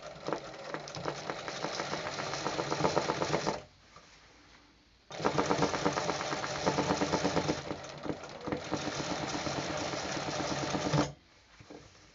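Sewing machine stitching free-motion embroidery in fast, even stitch clicks. It runs for about three and a half seconds, stops for about a second and a half, then runs again for about six seconds before stopping.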